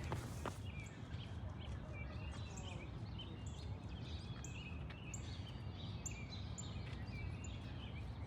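Several small birds chirping and calling in quick, short notes over a steady low background rumble.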